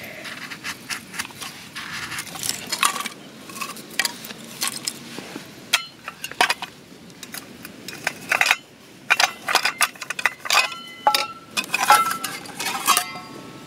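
A knife shaving curls off a stick of firewood in short scraping strokes, then metal cookware clinking and ringing as it is handled, with a run of sharp clinks in the last few seconds.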